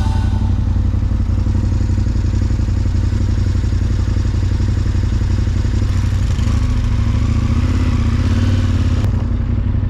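KTM 1290 Super Adventure's V-twin engine idling steadily, then opening up a little about two-thirds of the way through as the bike pulls away.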